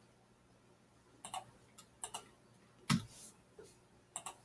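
Computer mouse and keyboard clicks: several faint, sharp clicks a fraction of a second apart. The loudest comes about three seconds in, and a quick pair follows near the end.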